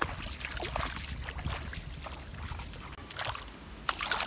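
Bare feet splashing and squelching through shallow muddy water in a series of walking steps, with a louder pair of splashes near the end.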